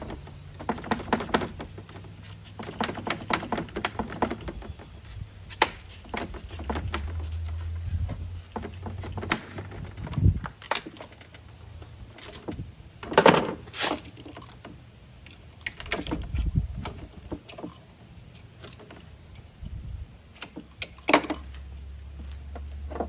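Scattered clicks, taps and clatter of hand work on a small piece of acrylic sheet being cut and freed, with a few louder knocks, over a faint low hum.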